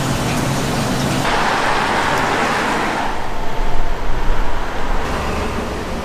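Street traffic: a steady hiss, then the low rumble of a vehicle passing about halfway through.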